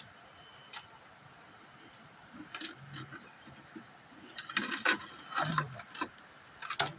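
Steady high-pitched insect chirring, with a cluster of sharp knocks and clatter about four and a half to five and a half seconds in and another knock near the end.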